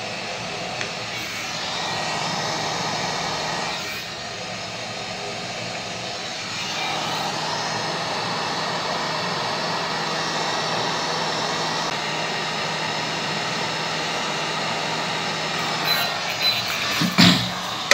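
Hot air rework station blowing steadily while a surface-mount chip is soldered onto a laptop motherboard, reflowing the solder to seat the replacement part. A few sharp clicks and knocks near the end.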